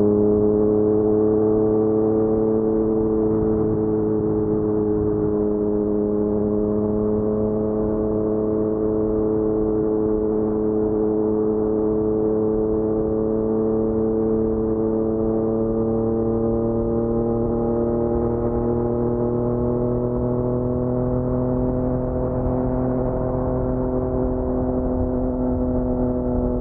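Yamaha MT-09's three-cylinder crossplane engine droning through an Akrapovic full-system exhaust at a steady cruise, its pitch creeping slowly upward as the revs rise.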